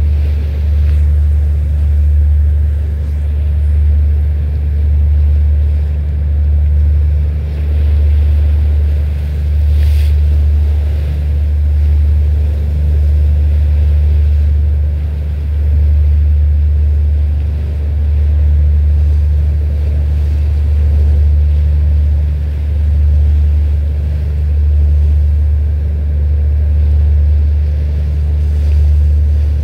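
Low, steady engine rumble of a boat underway, its level rising and falling slightly about every two seconds. A single brief click about ten seconds in.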